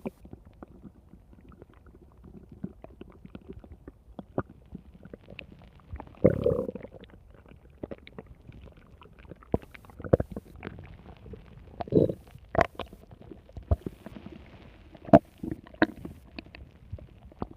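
Stomach growling: a run of low gurgles and short popping clicks, with louder gurgling spells about six, ten, twelve and fifteen seconds in.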